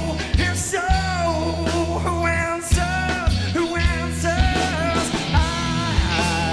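Rock song from a studio recording: a male singer holding long, gliding sung notes over electric guitars, bass guitar and drums hitting a steady beat.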